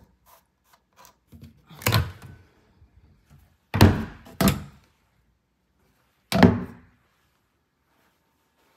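A cupboard door being handled, opened and shut: four separate thuds a second or two apart, the loudest two close together near the middle.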